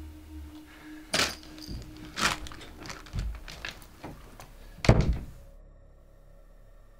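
A door being handled and shut: a run of clicks and knocks, then one loud thud about five seconds in. After the thud only a faint steady hum remains.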